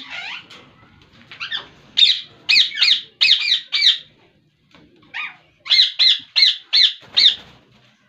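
Ringneck parakeets giving short, harsh calls in quick series: about six in a row from about a second and a half in, then, after a pause, about five more near the end.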